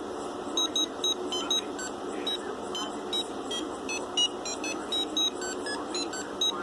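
A DF Robot micro:Maqueen robot's small onboard buzzer playing electronic sound effects: rapid short beeps that jump about in pitch, several a second.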